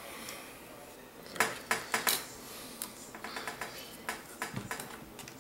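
Light clicks and taps of a plastic spudger and fingers against an iPad Air 2's glass screen and aluminium housing as the loosened screen is handled: a few sharper clicks about a second and a half in, then a run of small ticks.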